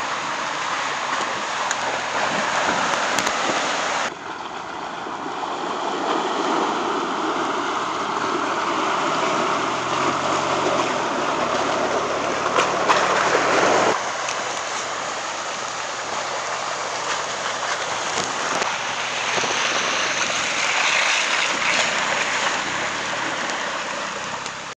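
Ford Bronco Everglades driving through mud and puddles: tyres churning and splashing water and mud, with the engine running underneath. The sound changes abruptly about four seconds in and again about ten seconds later.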